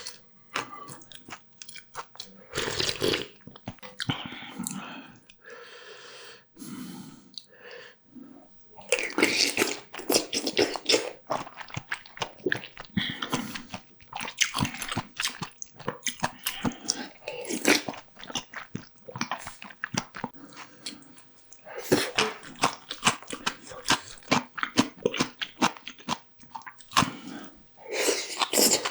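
Close-miked eating sounds: repeated biting and chewing, with many short, crisp crunches coming in irregular bursts and a few quieter pauses between mouthfuls.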